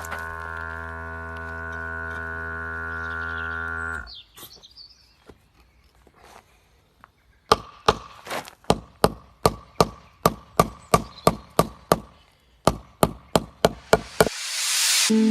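A steady pitched hum for about four seconds, then after a quiet pause a run of about twenty sharp chopping strikes, roughly three a second, each with a brief ring.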